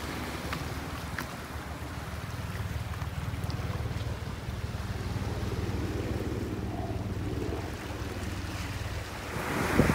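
Wind rumbling on the microphone over a steady wash of surf on the rocky reef.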